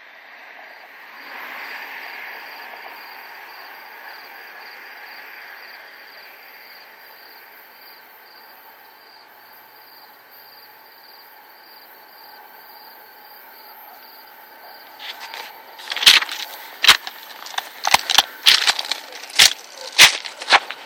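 An oncoming train heard at a distance as a steady rumbling hiss. About three quarters of the way in comes a run of loud, sharp, irregular knocks.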